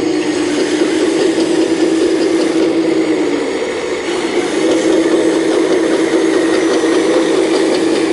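Full-size excavator's diesel engine running steadily under digging load, with some metallic rattle; the engine note dips briefly a few seconds in, then picks back up.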